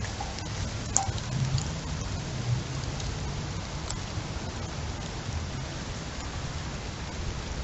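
Steady heavy rain hissing down in a windstorm, with a low rumble of wind underneath that swells briefly a second or two in. A few sharp drops tap close by.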